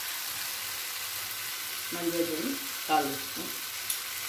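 Onions and tomatoes frying in oil in a nonstick pan: a steady sizzle, with one light click near the end.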